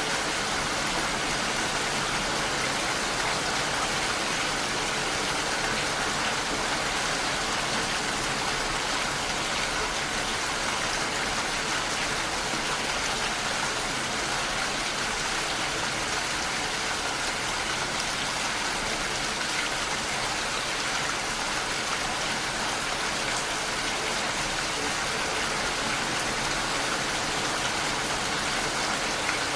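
Steady heavy rainfall, an even hiss of rain with no breaks or distinct drops.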